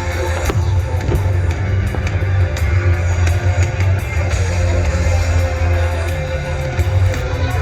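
Loud rock music with a heavy, steady bass line, played as the soundtrack of a fireworks show.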